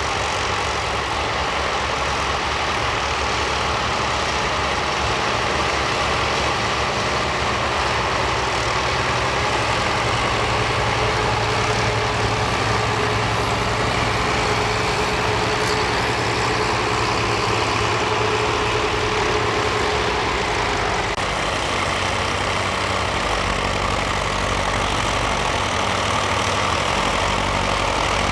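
County 1884 four-wheel-drive tractor's diesel engine running steadily under load while pulling a plough through stubble. About three-quarters of the way through it changes abruptly to a smaller Fordson Super Dexta three-cylinder diesel tractor working a tine cultivator.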